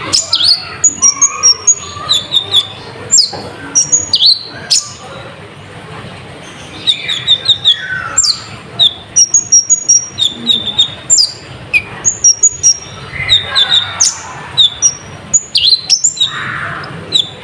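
Olive-backed sunbird (kolibri ninja, konin) singing hard: rapid runs of short, sharp, high chirps, quick repeated notes and downward-swept whistles, with few pauses. It is a lure song packed with imitated phrases.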